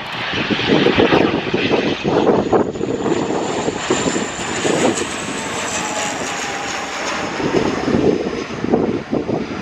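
ATR twin-turboprop airliner on landing approach, its engines and propellers whining as it passes close by; the whine rises and then falls in pitch around the middle. Gusty wind noise on the microphone runs underneath.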